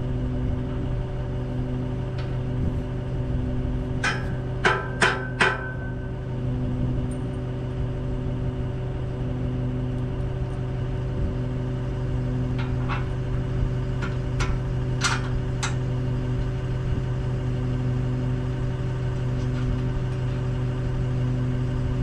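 An engine idling steadily, with a hammer striking steel: four quick ringing blows about four seconds in, and a few more scattered through the middle.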